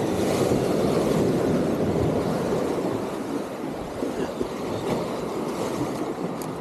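Sea surf surging and washing among concrete breakwater tetrapods, with wind on the microphone: a steady rushing noise that eases off slowly over the last few seconds.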